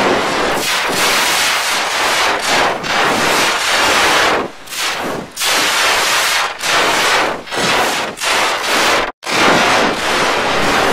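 Loud, harsh, heavily distorted noise from effect-processed logo audio, pulsing with short irregular dips and cutting out completely for an instant about nine seconds in.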